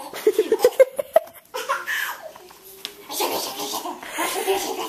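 Laughter: a quick run of giggles in the first second, followed by more laughing and voice sounds.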